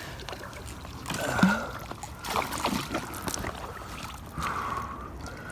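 Irregular water splashing and sloshing around a float tube as a hooked bass is fought.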